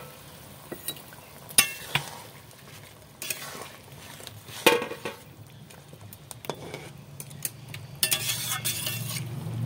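A spatula stirring fish curry in a metal karahi, scraping and knocking sharply against the pan several times over the low noise of the simmering broth. A louder steady noise comes in near the end.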